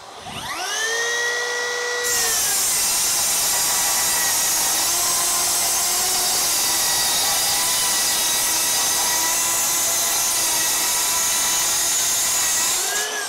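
Makita GSR02 40V XGT 10-1/4-inch rear-handle brushless circular saw spinning up with a rising whine, then cutting a long pass through a thick stack of wood sheets with a steady loud sawing noise for about ten seconds. Near the end it drops out of the cut and winds down quickly as the electric brake stops the blade.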